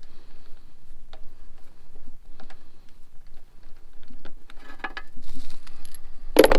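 Hands and tools working at a mower engine while changing its spark plugs: scattered light clicks and taps, a small cluster of them about five seconds in and a single louder clack near the end.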